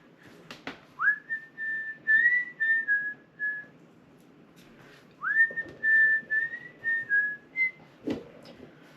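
A person whistling a tune with their lips, two short melodic phrases each opening with a quick upward slide, with a pause between them. A few faint clicks sound near the start and near the end.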